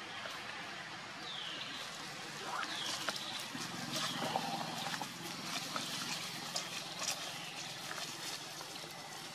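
Infant macaque giving several short, high, curved squeaking calls, with dry leaves crackling and rustling as the mother moves and walks over them.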